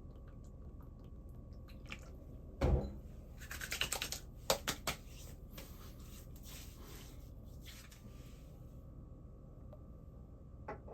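Small objects being handled and set down: a dull thump about two and a half seconds in, then a quick run of light clicks and taps, and a few faint scrapes.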